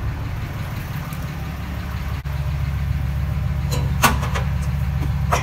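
Ram 2500 pickup engine idling steadily, with a few sharp clicks in the last second and a half.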